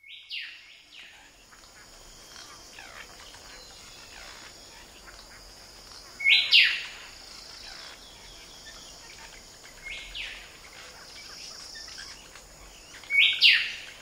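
Short, bright, chirp-like sound effects on the end-screen soundtrack, four of them a few seconds apart, over a faint steady high hiss.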